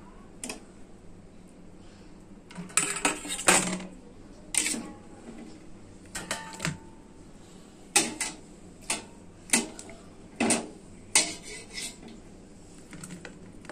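Stainless steel pot and plate clinking and knocking as boiled corn cobs are lifted out and set down on the plate: about a dozen irregular clatters, some in quick clusters.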